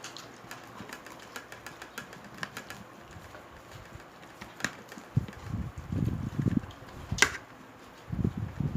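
Close-up eating sounds of crispy pata (deep-fried pork leg): scattered small clicks and crackles of the crisp skin, then heavier, irregular chewing from about five seconds in, with one sharp click just after seven seconds.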